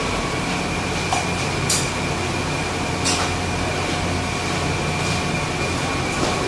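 Steady mechanical hum with a few brief clicks in the first half.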